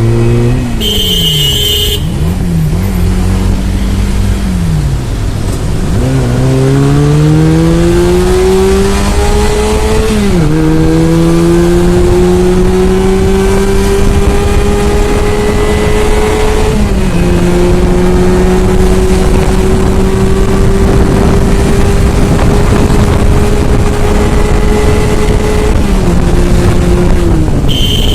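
Regal Raptor 250cc motorcycle engine accelerating hard through the gears, its pitch climbing and dropping sharply at two upshifts, then holding steady at high speed before falling off near the end. A horn honks briefly about a second in and again near the end.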